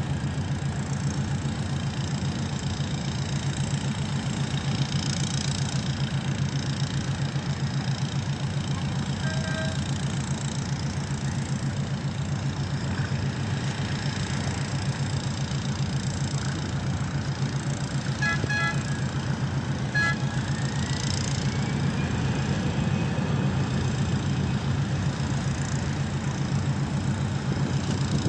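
An engine runs steadily with a low, even rumble. A few short pitched beeps come between about 18 and 20 seconds in, followed by a faint rising tone that then holds.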